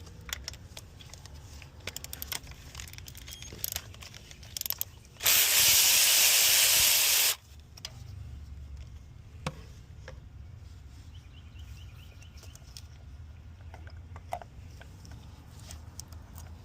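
A steady spraying hiss of about two seconds, starting about five seconds in and cutting off abruptly, amid light clicks and taps of hand tools on engine parts.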